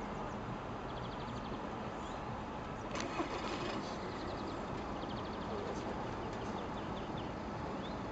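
Class 155 electric locomotive and its loaded car-transporter train rolling closer: a steady rumble of wheels on rail with faint runs of clicking, and one sharp knock about three seconds in.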